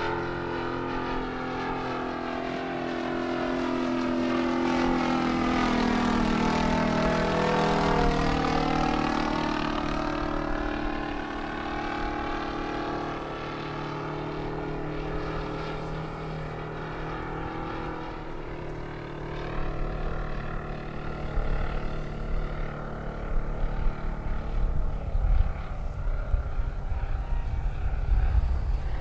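A 1/3.5-scale radio-controlled Morane D-3801's 120 cc Fiala FM120i2 engine and propeller droning as the model flies past, loudest about a quarter of the way in and then easing off. In the last third a low, gusty rumble comes in under it.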